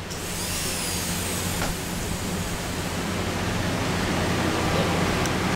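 High-speed air-turbine dental handpiece running with an inverted cone bur, smoothing the floor of a class V cavity in a model tooth. It is a steady hiss, with a high whine that slides down in pitch within the first second.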